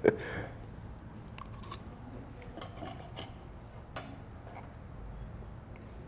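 A metal spoon clinks once against a ceramic bowl, followed by faint, scattered clicks and mouth sounds of someone chewing a mouthful of food.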